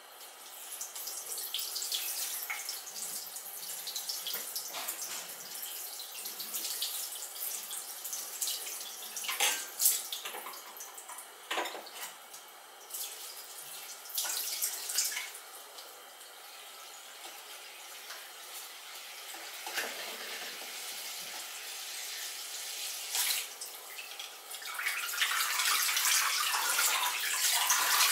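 Kitchen mixer tap running into a clear pot holding an orchid in the sink, water splashing through the plant and pot, with a few sharp knocks along the way. The flow gets louder and fuller about 25 seconds in.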